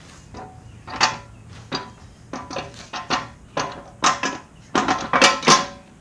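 Steel parts of a backhoe quick-connect coupler and its pins clanking as they are handled: a run of sharp metallic knocks, each ringing briefly, loudest near the end.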